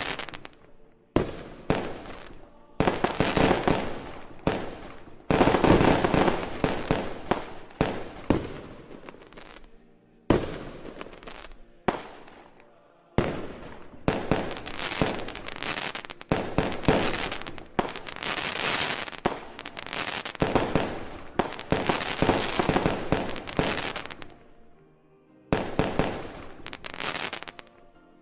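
Aerial fireworks shells bursting one after another, each a sudden bang that fades away, with a few brief lulls between bursts.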